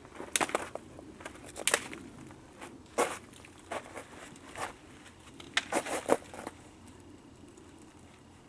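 Footsteps and scrambling among dead branches and dry brush: a run of short, irregular crackles and snaps of twigs and bark. Quieter for the last couple of seconds.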